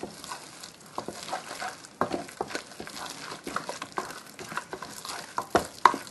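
A hand squeezing and kneading mashed potato into a soft dough in a pot: irregular wet, sticky squelches and smacks, the loudest near the end.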